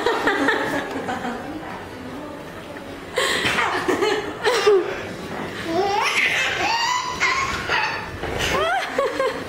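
Laughter: a baby's high-pitched delighted squeals and laughs mixed with adults laughing, starting about three seconds in after a quieter stretch of voices.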